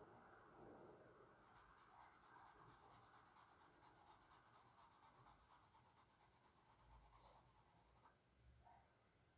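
Faint scratching of a charcoal stick drawn across canvas, dying away near the end.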